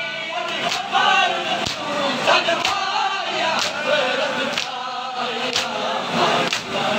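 A Shia noha (mourning lament) chanted by a male reciter with a crowd of men singing the refrain, and sharp hand strikes keeping time about once a second.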